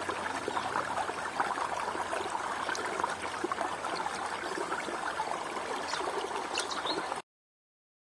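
Shallow stream water running steadily over mossy stones, cutting off suddenly about seven seconds in.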